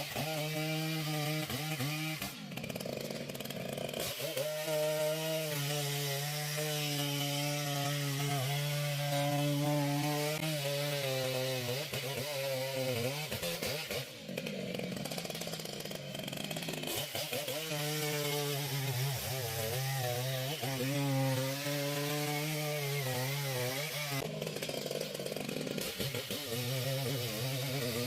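Two-stroke chainsaw running at high revs and cutting wood, its engine pitch wavering up and down as it works under load. The engine sound breaks off briefly three times: about two seconds in, around fourteen seconds in, and near twenty-four seconds.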